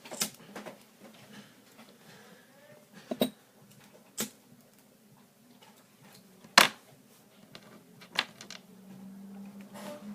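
A few separate sharp clicks and taps from small objects being handled on a work surface, the loudest about two-thirds of the way through. A low steady hum starts near the end.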